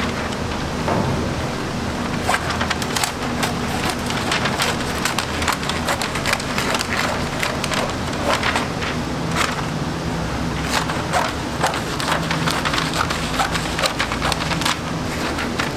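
Scissors slicing through a long sheet of pink butcher paper, with the stiff paper crackling and rustling in many quick, sharp snaps throughout. A steady low hum runs underneath.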